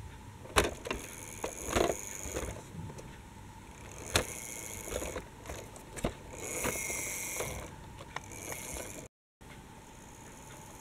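Plastic toy articulated bus being moved over a wooden model level crossing and track, with scattered clicks, knocks and short scrapes.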